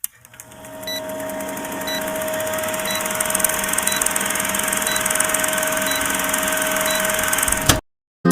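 A steady, machine-like hum and hiss that swells up over the first second, with a short high beep about once a second. It cuts off suddenly near the end.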